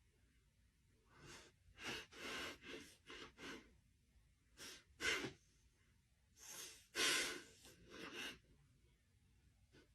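A dog's short breathy huffs and snorts, about a dozen in quick irregular succession, the loudest about five and seven seconds in.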